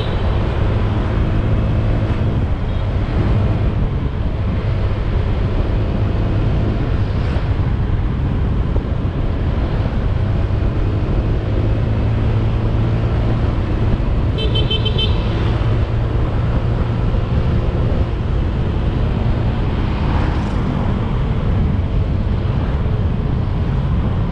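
Motorcycle ride heard from a helmet-mounted GoPro in a foam wind cover: a steady low engine and wind rumble with road noise. A vehicle horn beeps briefly about fifteen seconds in.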